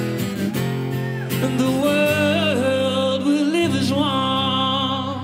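A man singing a slow melody line with vibrato over a strummed steel-string acoustic guitar.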